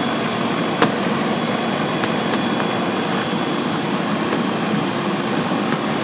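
Air-conditioning unit running: a steady, even rushing noise, with one sharp click about a second in.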